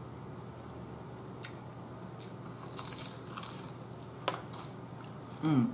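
A crisp bite into a fried egg roll with a crunchy crackle about three seconds in, followed by chewing and a few small clicks. Near the end there is a short hum that falls in pitch.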